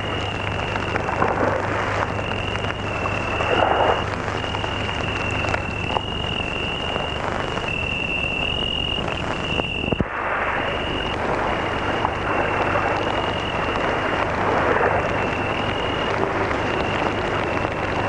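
Crickets trilling in one continuous high, slightly wavering trill that breaks off briefly a few times, over crackling from a campfire and the hiss and hum of an old film soundtrack.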